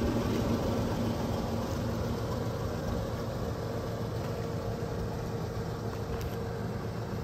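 Toyota 4Runner engine idling steadily, a low even rumble with a faint steady hum over it.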